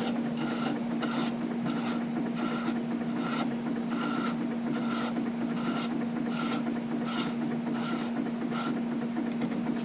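A small machine running steadily: a constant hum with a regular whirring pulse about twice a second.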